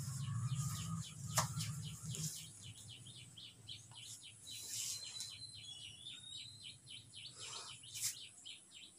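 Birds chirping in quick, steady succession, faint and high. A low hum runs under it and stops about two seconds in, and there are a couple of light clicks.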